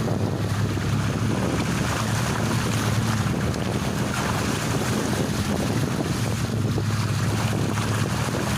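VAZ-21099 on a test drive, with a steady low engine hum under road and wind noise. It is being driven after new front struts and top-mount bearings were fitted, to check whether the front knock is gone.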